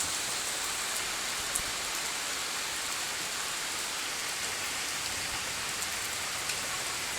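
Heavy rain pouring steadily onto the ground and a porch: an even hiss with the odd sharper drop hit.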